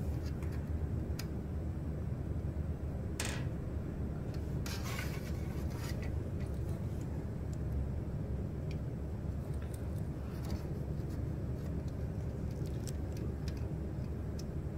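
Handling noise from hand-soldering a circuit board: scattered small clicks and rubbing of the board and soldering iron over a steady low rumble, with two short noisy bursts about three and five seconds in.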